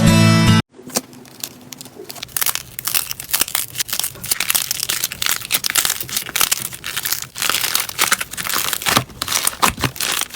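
Slime being squeezed and worked by hand, giving a dense run of quick crackling pops and crinkles that come and go in waves. A burst of electronic music cuts off suddenly just after the start.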